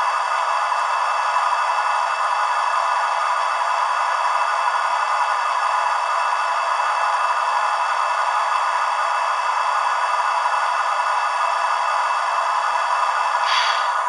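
Recorded air-compressor sound of a Class 43 HST power car, played by a model train's DCC sound decoder over the idling MTU engine sound. It comes through the model's small speaker, thin and with no bass, as a steady running noise, with a short hiss near the end.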